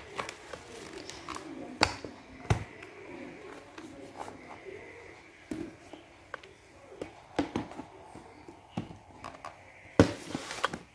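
Handling noise from a laptop being lifted and moved around: scattered knocks, taps and clicks, with the loudest bump about ten seconds in, over a faint steady high whine.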